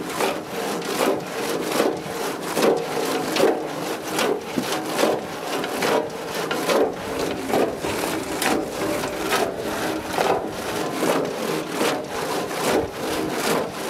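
A wooden paddle scraping and stirring dried cacho de cabra chilies in a toasting pan (cayana) over a wood fire, the toasting stage of merkén-making. The strokes repeat in a steady back-and-forth rhythm.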